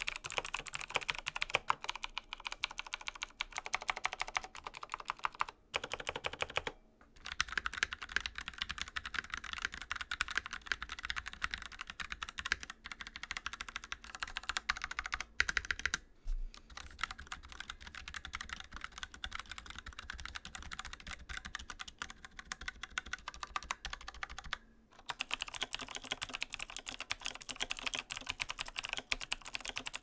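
Fast typing on a series of Razer Blackwidow mechanical keyboards, one short clip after another with abrupt changes between them. It opens on a Blackwidow 2019 with clicky Razer Green switches, passes midway through a Blackwidow Lite with quieter, tactile Razer Orange switches, and ends on a Blackwidow Elite with Razer Green switches.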